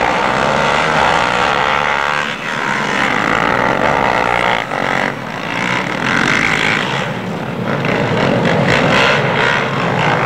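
Loud engine noise, steady throughout, its pitch wavering up and down in the first few seconds.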